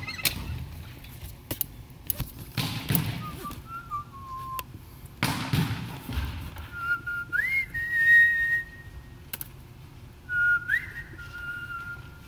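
Volleyballs being hit and bouncing on a gym's wooden floor, heard as a string of sharp smacks and thuds, with a few longer rumbling knocks. Over them come intermittent high squeaky tones that hold a pitch and slide upward, loudest about eight seconds in.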